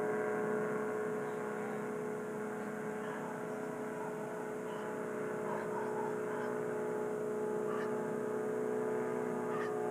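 Powered parachute engine running at a steady speed: an even drone with a stack of steady overtones that does not rise or fall. A couple of faint clicks near the end.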